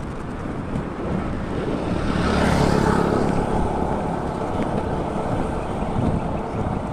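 A motor vehicle passes close by, its engine and tyre noise swelling a couple of seconds in and then fading, over a steady wind rumble on the microphone.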